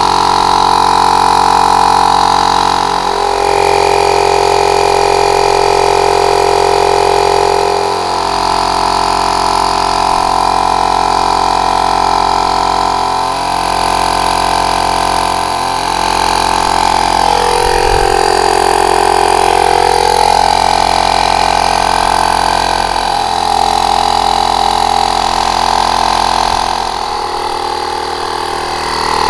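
Battery-powered handheld, drill-style portable air compressor running steadily under load as it inflates a pickup truck tyre. It is a continuous motor-and-piston drone whose pitch dips and shifts briefly every few seconds.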